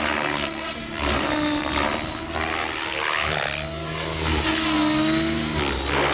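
700-size electric RC helicopter with a 530 kV brushless motor in aerobatic flight: the rotor blades whoosh and the motor and gears whine, the pitch sweeping down and back up around the middle as it manoeuvres.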